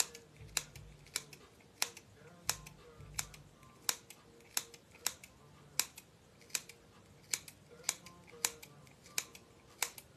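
Hair scissors snipping into the ends of a ponytail with short, sharp snips, a little under two a second. The blades are angle-cutting into the ends rather than making a blunt cut.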